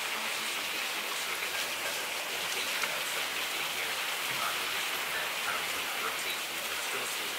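Heavy rain falling, with water pouring off the edge of a porch roof: a steady, even hiss of rain on the ground and roof.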